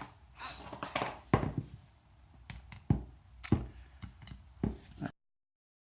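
Scattered knocks and clicks of an airsoft electric rifle's parts being handled while its gearbox is opened, a few separate taps a second or so apart; the sound cuts off about five seconds in.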